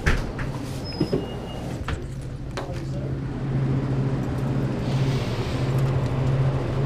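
Knocks and clicks of doors, then a glass-door drinks cooler is opened, and a steady low hum from the cooler comes up about halfway through.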